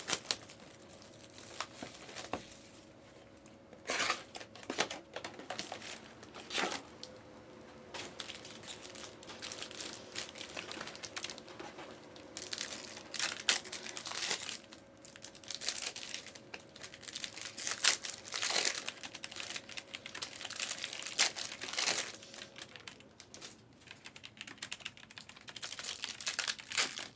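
Plastic and foil trading-card pack wrappers crinkling and tearing open in irregular bursts, with a faint steady hum underneath.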